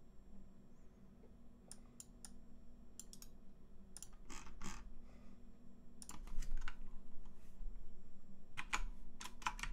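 Typing on a computer keyboard, in irregular runs of keystrokes that grow busier near the end, over a faint steady hum.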